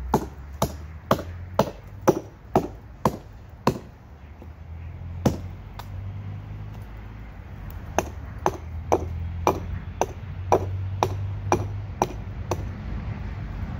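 Hatchet chopping into a fallen tree branch: sharp strikes about two a second, eight in a row, one lone strike a little later, then another run of about ten.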